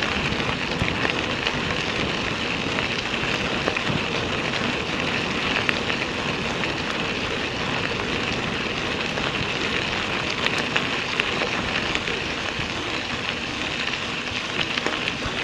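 Mountain bike tyres rolling fast over a gravel road: a steady crunching hiss with many small crackles.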